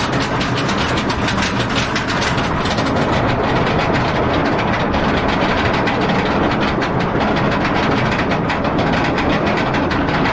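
Chain lift of a B&M dive coaster hauling the loaded train up the lift hill, a steady rapid clatter of chain and track.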